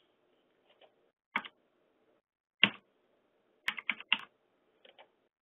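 Computer keyboard keys being pressed: single taps about a second apart, then a quick run of three, and two faint taps near the end.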